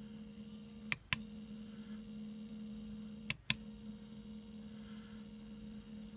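Stepper motor of a rotary indexer running in continuous speed mode: a steady low hum with a fainter higher tone. Two pairs of sharp clicks break in, about a second in and just past three seconds in.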